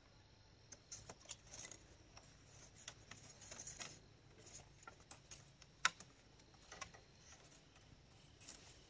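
Faint rustling and scattered light clicks from split-bamboo strips being handled and worked into a shelter frame, with one sharper click about six seconds in.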